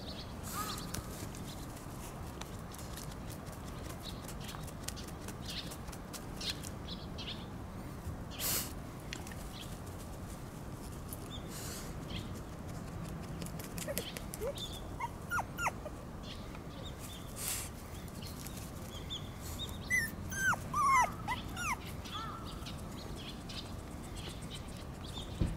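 Very young Shiba Inu puppy, under four weeks old, whimpering in short high squeaks that bend in pitch: a few around the middle and a quick cluster near the end.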